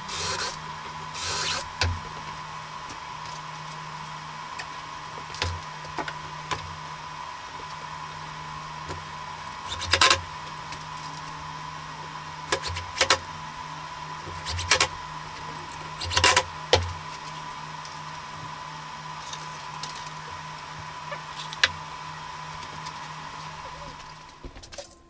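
Cordless drill-driver driving screws into a chipboard cabinet panel in a series of short bursts, the loudest about ten seconds in and again around sixteen seconds, over a steady hum that stops just before the end.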